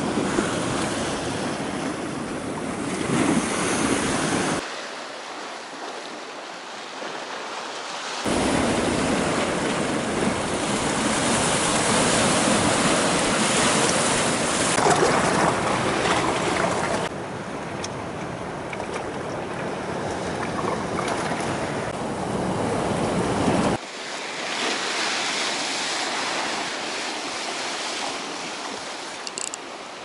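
Waves of a rough Black Sea washing against the pier and shore, with wind buffeting the microphone. The noise changes abruptly several times, at about 4, 8, 17 and 24 seconds in.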